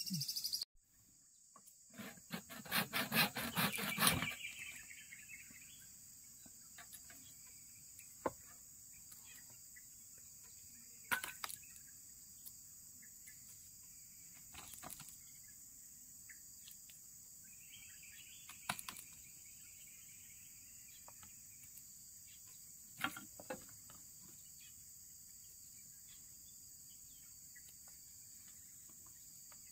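Steady high-pitched drone of insects such as crickets. Over it come scattered soft snaps and clicks of fresh oyster mushrooms being torn apart by hand, with a quick run of clicks a couple of seconds in.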